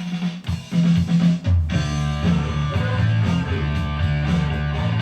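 Rock song intro: guitar and bass notes, sparse at first, with the full band coming in about a second and a half in.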